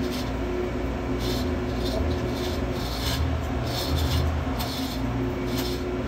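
Hand chain of a chain block being hauled, the links running through the block in repeated pulls about two or three a second, starting about a second in, while it lowers a ship main engine's crosshead pin. A steady low machinery hum runs underneath.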